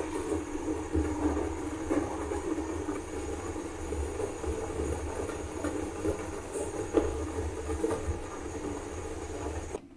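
Sugar syrup boiling in a pan with rice-flour rasgullas cooking in it: steady bubbling over a low rumble, with a couple of sharp pops. It cuts off suddenly near the end.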